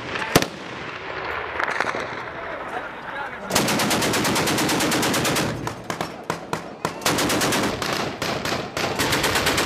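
Automatic weapons fire in a firefight: a single sharp shot near the start, then from about three and a half seconds in a long burst of rapid automatic fire, with scattered shots and a second sustained burst near the end.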